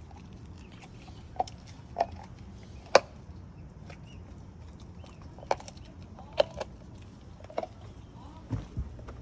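A pit bull chewing and licking a piece of raw meat on bone: irregular sharp clicks and cracks of teeth and bone, spaced a second or so apart, the loudest about three seconds in.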